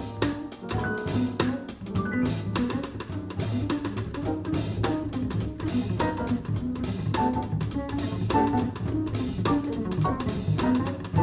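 Live jazz piano-group recording taken off an FM broadcast onto cassette tape: the drum kit plays busy cymbal and drum strokes over bass notes, with piano in the mix.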